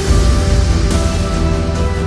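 Background music: held notes over a deep, steady bass, with a new note coming in about a second in.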